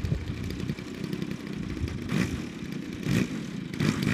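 DLE-55 single-cylinder two-stroke petrol engine of an RC plane running at low throttle, surging briefly about three times in the second half.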